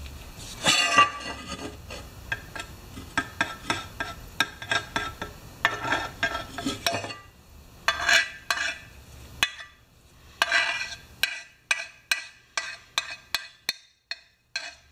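Old steel screwdriver scraping and clicking against the rim of a chainsaw's metal gas tank half as JB Weld epoxy is spread along the gasket surface. It makes a run of irregular short scrapes and sharp ticks, thinning out into separate clicks in the second half.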